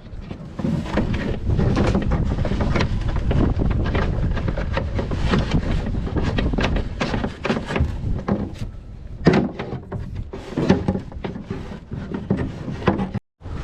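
Busy clattering, knocking and scraping of hands at work in a boat's compartment, with many short knocks close together and louder single knocks in the second half; the sound drops out for a moment near the end.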